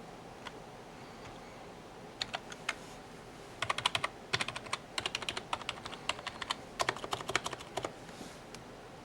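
Keys being pressed on a Rizum G-Factor Z30 aluminium gaming keyboard: a few separate key clicks at first, then a quick run of keystrokes from about a third of the way in until near the end.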